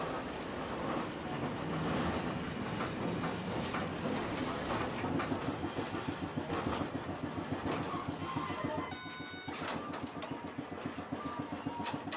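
Electric streetcar running over tram track, its wheels clacking in a fast even rhythm as it passes over the crossing rails of a junction. A brief high electronic tone sounds about nine seconds in.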